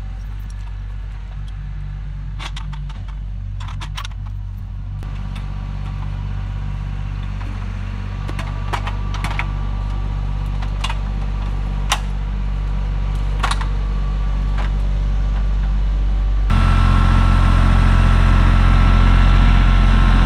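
Kioti tractor's diesel engine idling steadily, getting suddenly louder near the end, with scattered metallic clinks from a chain being handled.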